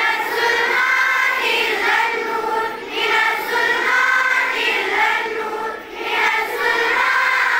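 A choir of schoolchildren singing a prayer together in unison in Kashmiri, many young voices on one tune. The singing starts at the opening and pauses briefly between lines about three and six seconds in.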